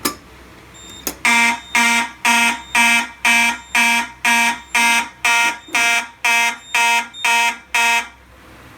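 Simplex 2901-9838 fire alarm horn sounding in march-time code, about two blasts a second, after a short click at the start as a manual pull station is pulled; the blasts stop near the end.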